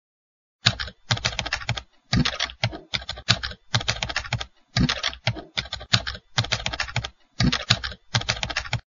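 Typing sound effect: rapid keystroke clicks in short runs, broken by brief pauses. It starts just under a second in.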